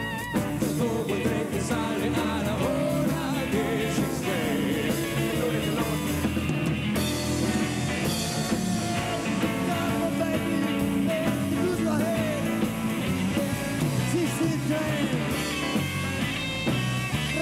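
Rock music: a band playing, with a sung melody line over the instruments.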